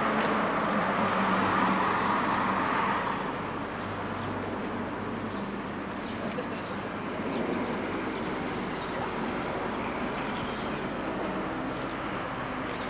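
Car engine running, with a low steady hum over general outdoor noise; louder for the first three seconds, then dropping back to a lower, steady level.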